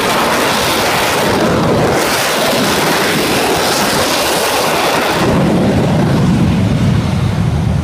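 Jet engine of a delta-wing jet fighter running on the ground, a loud steady rushing noise. About five seconds in, the high hiss falls away and a deeper rumble takes over.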